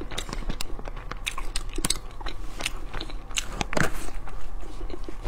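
Mouth sounds of a person biting and chewing a very soft purple-rice bread filled with taro paste: a steady run of short, sharp wet clicks and smacks.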